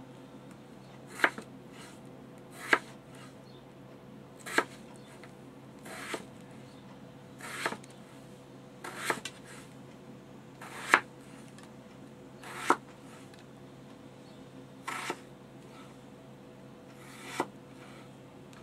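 A chef's knife slicing through raw yellow potatoes, each cut ending in a sharp knock of the blade on the cutting board: about ten cuts, one every couple of seconds, over a faint steady hum.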